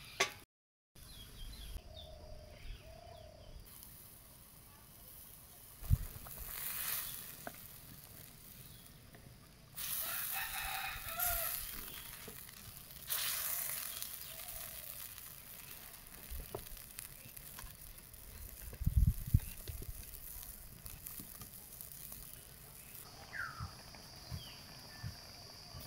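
A rooster crowing and chickens clucking, over the hiss and bubbling of a curry simmering in a clay wok over a wood fire. There is a dull knock about six seconds in and a few more around nineteen seconds.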